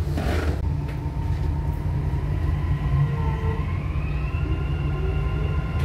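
Dubai Metro driverless train running through a tunnel, heard from inside the front car: a steady low rumble under a whine from the electric traction motors that rises in pitch about two seconds in as the train gathers speed.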